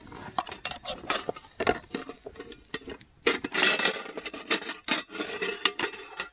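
Scraping, rubbing and light clicks of a metal camping pot being handled and got out, with a louder scraping stretch about three seconds in.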